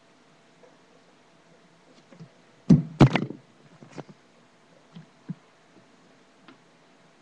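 Two loud knocks close together, the second trailing into a brief rattle, as the camera is picked up and moved, then a few faint taps.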